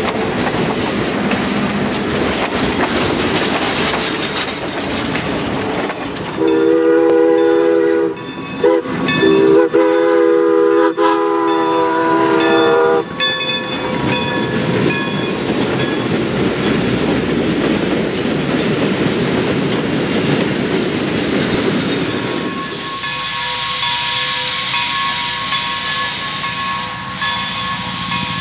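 Steam passenger train rolling past a grade crossing, wheels clattering over the rails. About a third of the way in, the steam locomotive's chime whistle blows for a grade crossing in a few blasts, the last one long, then the rolling clatter goes on.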